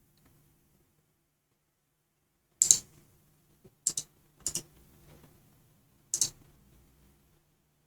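Four separate clicks of a computer mouse, each short and sharp and spread a second or so apart, with a faint low hum underneath.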